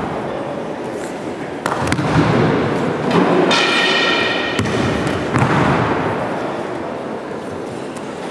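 Aikido breakfalls on tatami mats: bodies slapping and thudding onto the mat several times as one partner throws the other, echoing in a large hall. A brief high-pitched tone sounds about halfway through.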